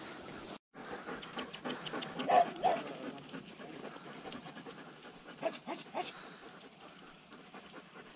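A hunting dog panting. The sound drops out for a moment just under a second in.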